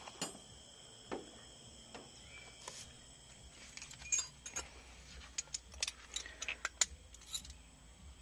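Faint, irregular metallic clicks and clinks of hand tools and nuts being handled, more frequent in the second half.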